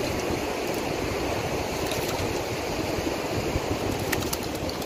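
Steady wash of rough surf breaking on the beach, with a few faint clicks.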